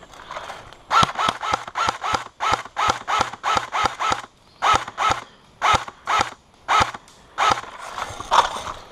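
Running footsteps on outdoor ground, a quick even stride of about two to three steps a second that pauses briefly a few times.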